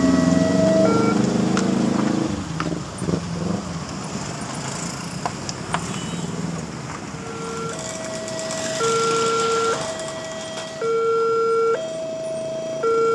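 Railway level-crossing warning alarm: two electronic tones, a lower and a higher, alternating about once a second. The tones drop out for several seconds in the first half, while a loud low droning sound fades away over the first two or three seconds, and they return about seven seconds in.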